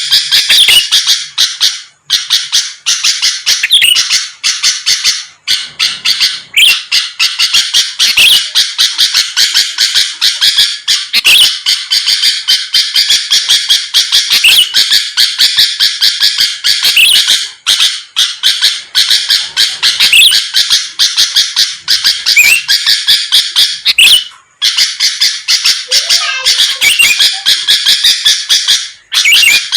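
Sooty-headed bulbul (kutilang) singing in full, energetic song: a dense, fast run of short, high chattering notes with a few brief pauses.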